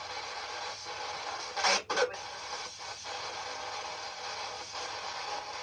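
Spirit box radio scanner sweeping through stations: a steady hiss of radio static, broken by one loud short burst of radio sound about two seconds in.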